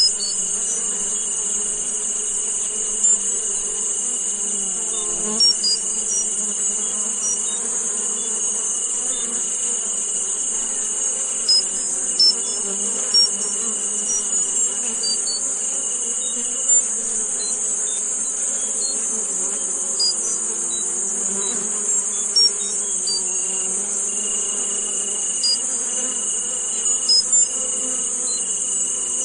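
A tinnitus-masking sound world: a steady, dense high-pitched hiss, with a thin high tone that breaks off now and then, a low wavering hum beneath, and scattered short high chirps.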